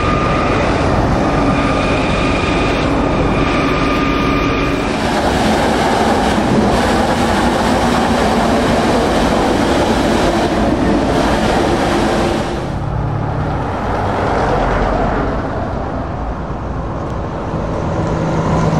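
Heavy trucks driving past one after another with diesel engine and tyre noise, a steady high whine over the first few seconds. In the middle a road sweeper goes by, its rotating brush and suction adding a dense rushing hiss.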